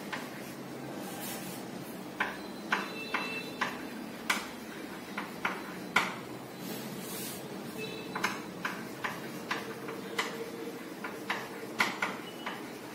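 Chalk tapping and scratching on a chalkboard in short, irregular strokes as a word is written, with a few brief high squeaks.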